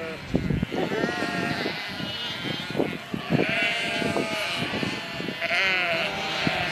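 A flock of sheep bleating, many calls overlapping, several of them long and quavering. Scattered short low knocks run underneath.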